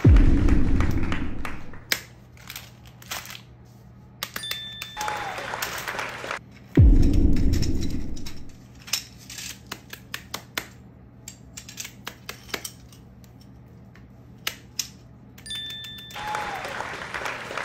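Edited-in sound effects: a heavy low thud at the start and another about seven seconds in, with swelling sweeps carrying a few short tones in between. Scattered sharp clicks and taps of small objects fill the quieter stretches.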